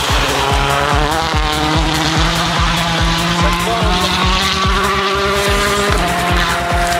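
Rally car engine at high revs, the pitch rising and falling as the car slides past close by on a gravel road. Electronic dance music with a steady fast beat plays underneath.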